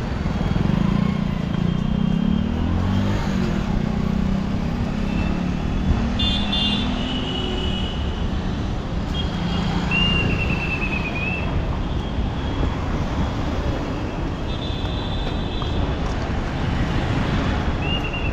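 Steady city street traffic noise: vehicle engines running, with brief high-pitched tones sounding now and then over the rumble.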